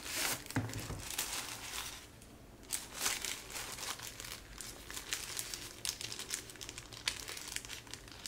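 Packaging crinkling and rustling as a camera accessory packet is handled and opened, in short irregular crackles with a brief lull about two seconds in. A soft knock comes just after the start.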